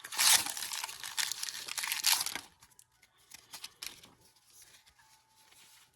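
Foil Pokémon booster pack being torn open and crinkled for about two and a half seconds, then only faint rustling and ticks as it is handled.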